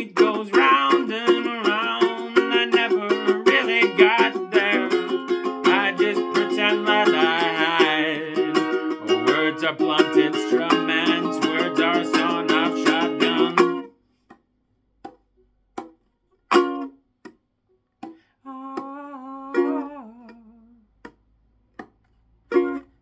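Ukulele strummed fast and steadily, then cut off abruptly a little over halfway through. After that come only a few short isolated notes and clicks, with near silence between them.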